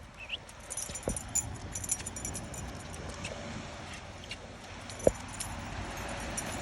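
Light metal jingling in two clusters of small clinks, like tags or hardware on a dog's collar and leash while the dog moves about. Two sharp knocks come about a second in and about five seconds in, over a steady hiss of light rain.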